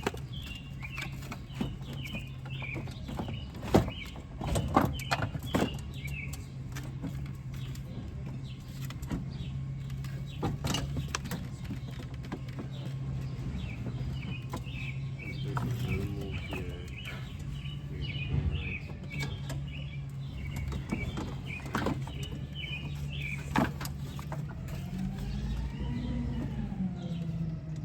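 Scattered clicks and knocks as a car's plastic front bumper and its clips are worked loose, over a steady low hum, with birds chirping.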